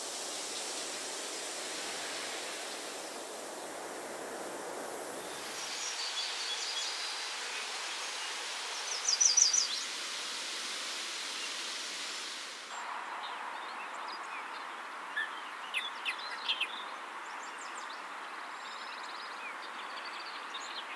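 Outdoor meadow ambience: a steady hiss of background noise that shifts abruptly twice, with scattered short bird chirps and a quick run of high notes about nine seconds in.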